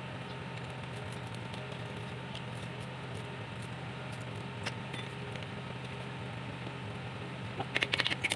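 A steady low mechanical hum, with a quick run of sharp clicks or taps near the end.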